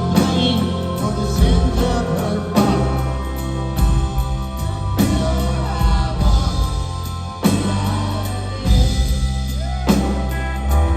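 Rock band playing live: drum kit, electric guitars and bass, with singing.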